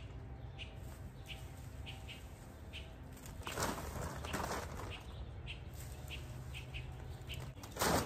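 Leafy branches and weeds rustling and crackling against paper as they are stuffed into a paper yard-waste bag, in a few bursts with the loudest near the end. A bird chirps over and over in the background.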